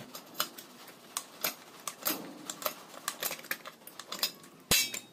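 Hand pop-rivet gun setting a rivet in a motorcycle racing exhaust muffler: irregular clicking as the handles are squeezed and the mandrel is drawn. A single loud sharp snap near the end is the mandrel breaking off as the rivet sets.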